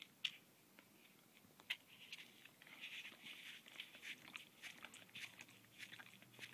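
Husky biting and chewing a foam ice cream cup: faint, irregular crunches of teeth on the foam.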